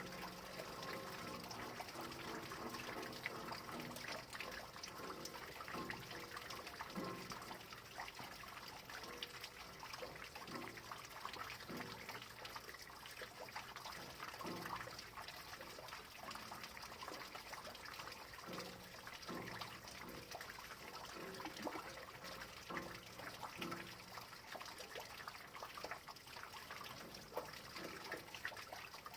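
Rain falling steadily, with many small drips and a trickle of running water. Short, soft, low tones come and go underneath.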